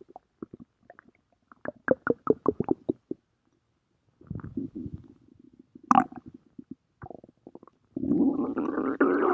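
Stomach growling: several short runs of rapid, bubbly gurgling, then a louder, continuous gurgling rumble starting about eight seconds in.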